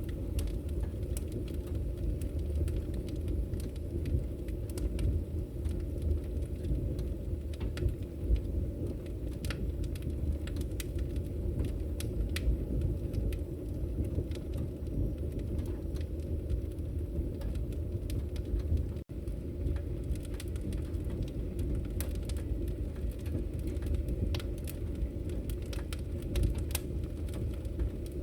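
Firewood burning: a steady low rumble from the fire with frequent sharp crackles and pops from the wood. The sound briefly drops out for an instant about two-thirds of the way in.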